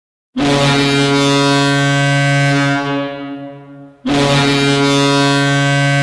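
Owen Sound Attack hockey goal horn blasting twice: a long, low, steady blast that fades away, then a second blast starting about four seconds in.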